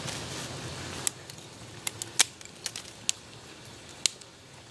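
Small wood fire of hardwood and pine kindling catching on a grill grate: a soft hiss for about the first second, then sharp pops and crackles, about six of them scattered, the loudest a little over two seconds in.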